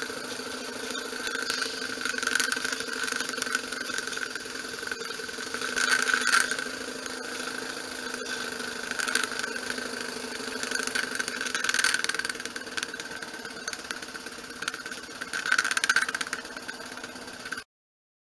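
Small brass single-cylinder prototype model steam engine running, a steady hum with fast ticking that swells louder every three to four seconds. The sound cuts off suddenly shortly before the end.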